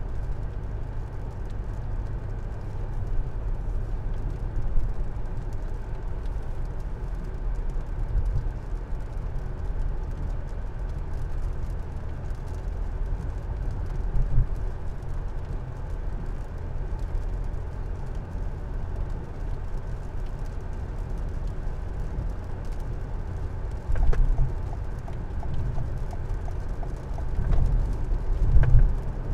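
Steady low rumble of a car driving on a wet road, heard from inside the cabin, with a few louder bumps near the end.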